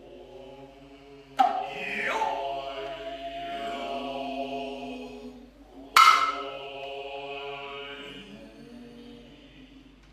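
Noh hayashi drummers with their long, drawn-out vocal calls (kakegoe), cut by two sharp hand-drum strikes about four and a half seconds apart: one about a second and a half in, the other about six seconds in.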